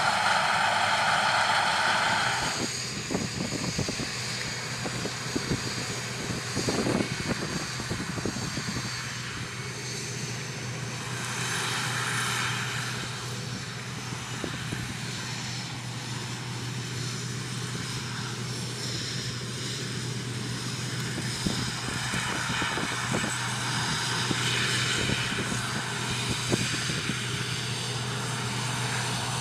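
Combine harvester running steadily in the field: a constant engine drone with scattered clicks and crackles. The sound changes abruptly about two and a half seconds in.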